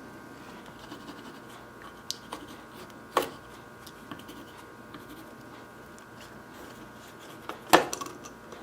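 Pencil scratching faintly as it traces around a knife scale onto G10 sheet, with small taps and a sharper click about three seconds in and a louder pair of clicks near the end as the pieces are handled.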